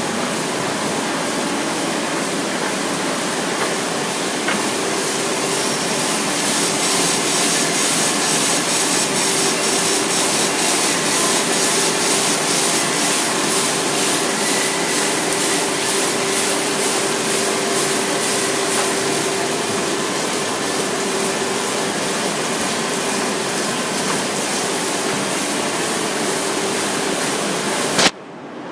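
Höfler H1000 gear grinding machine running: a steady hiss and hum of the grinding wheel at work, with a fine even pulsing through the middle. A sharp click near the end, then the sound drops off abruptly.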